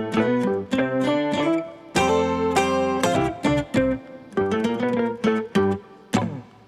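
Background music on a plucked string instrument, picking single notes, with a fuller held chord about two seconds in and a brief drop in level near the end.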